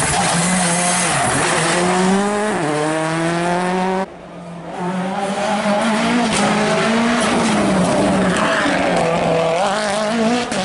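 Rally car engines at full throttle. A Citroën C3 R5's turbocharged 1.6-litre four-cylinder climbs through the revs, with an upshift about two and a half seconds in. After a cut about four seconds in, a second rally car accelerates up the road and passes close, its revs rising and falling through gear changes.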